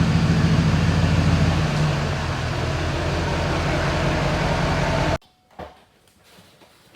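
An engine running steadily with a low, even hum, which cuts off abruptly about five seconds in, followed by a faint thump.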